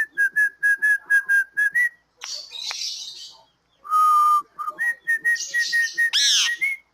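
A tune whistled in clear notes: a quick run of short notes, a longer, lower note about four seconds in, then another run of short notes ending on a higher one. Between the runs, a green Indian ringneck parakeet gives harsh squawks.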